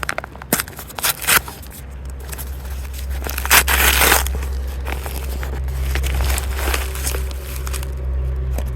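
A cardboard package being cut and torn open: a few sharp clicks and scrapes at first, then a loud ripping tear about three and a half seconds in, over a steady low hum.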